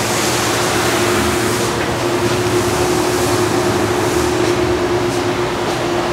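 Steady mechanical hiss and hum of workshop machinery, with one faint constant tone running under the noise.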